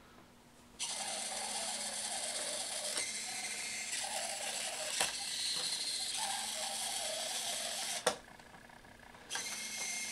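Boe-Bot robot's continuous-rotation servo motors whirring with gear noise as the robot drives. They start about a second in, cut off with a sharp click about eight seconds in, and start again a second later.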